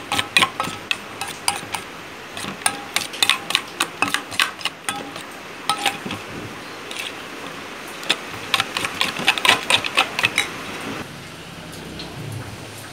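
A metal spoon clinks and scrapes against a stainless steel bowl while stirring a mashed pumpkin and egg mixture. It comes in quick runs of clinks, several a second, which ease off near the end.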